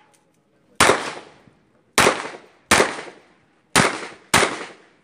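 Smith & Wesson 929 9mm revolver fired five times, the later shots coming in two quick pairs, each shot ringing out briefly.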